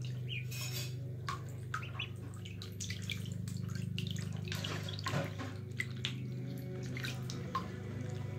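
Ducklings paddling in shallow bathtub water: light splashing and dripping, with a steady low hum underneath.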